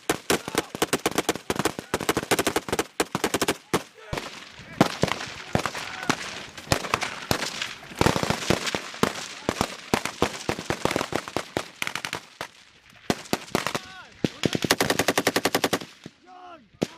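Assault rifles firing live rounds in rapid, overlapping strings of shots from several shooters at once, with fast bursts near the end.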